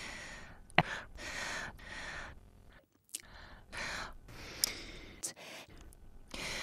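A person's heavy breathing: a quick string of gasps and sighs, some close to whispers, with a few sharp clicks between them.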